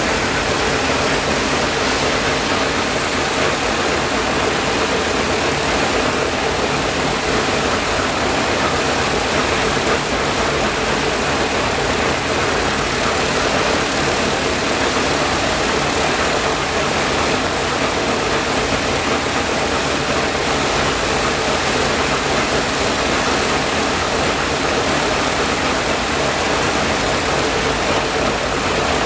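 Shvetsov ASh-82T 14-cylinder radial engine of an Ilyushin Il-14T running steadily on the ground, propeller turning.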